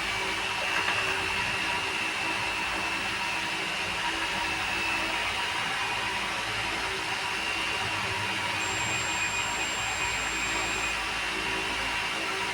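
Steady whooshing hiss of moving air, with a faint high tone running through it and a thin, higher whine for a couple of seconds near the end.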